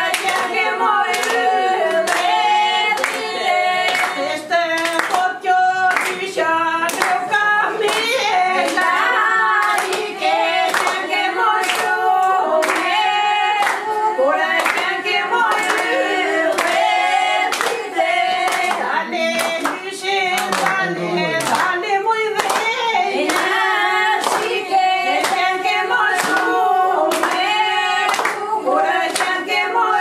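A group of women singing together with steady hand clapping, about two claps a second.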